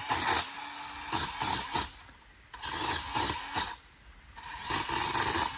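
DeWalt pole saw cutting dead tree branches: three spells of rasping saw strokes through the wood, with short pauses between them.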